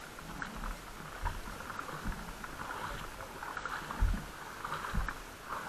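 Fast-flowing floodwater rushing across a trail crossing in the rain: a steady watery rush, broken by a few dull low thumps, the loudest about four seconds in.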